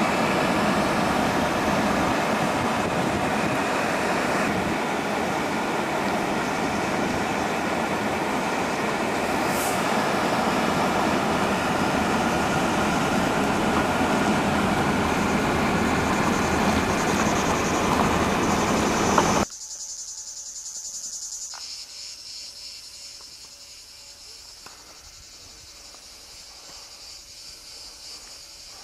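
A loud, steady rushing noise that cuts off suddenly about two-thirds of the way through. After it, insects chirr faintly in a high, finely pulsing buzz.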